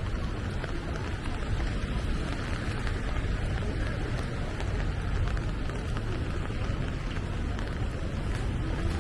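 Steady rain on a city street: a continuous hiss dotted with small drop patters, over a steady low rumble.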